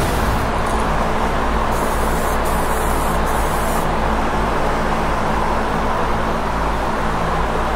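Aerosol spray can hissing in short crosshatch passes for the first few seconds, over a steady fan drone that runs on alone after the spraying stops.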